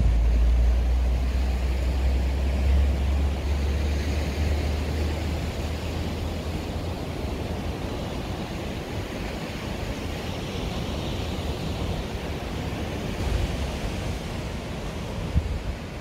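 Steady wash of ocean surf on a rocky shore, with wind buffeting the microphone in a low rumble that is strongest for the first several seconds and then eases.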